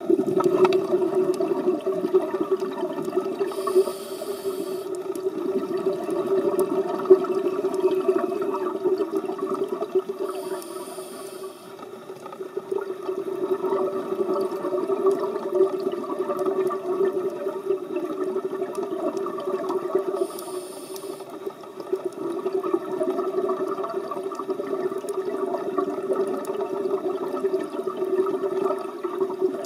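Scuba diver breathing through a regulator underwater: three short hissing inhalations several seconds apart, with rough bubbling exhalation noise between them over a steady low hum.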